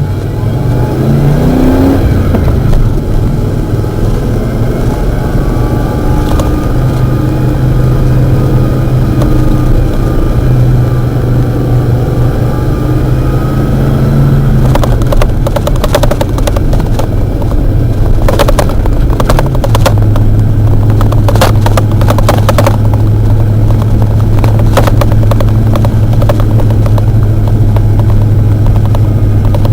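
Ford 302 V8 of a 1991 F-150 pulling the truck on the road. Its pitch climbs as it revs up about two seconds in, holds and shifts through the middle, then settles into a steady drone for the second half, with scattered crackles over it.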